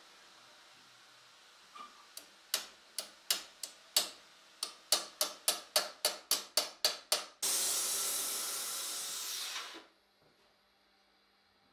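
Ball-pein hammer striking a red-hot steel visor plate on a stake anvil: about sixteen sharp blows that quicken to about four a second. A loud steady hiss follows for about two seconds and then dies away.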